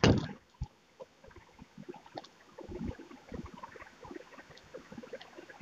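Faint room noise with scattered small, irregular clicks and rustles during a pause in the narration.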